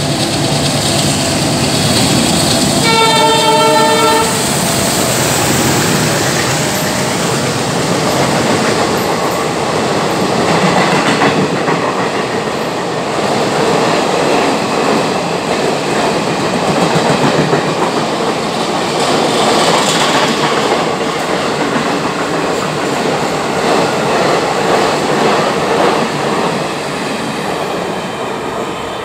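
Express train running through the station at speed. The locomotive sounds a horn blast of about a second a few seconds in, then the long train's coaches clatter past on the track, fading slightly as the last coach goes by.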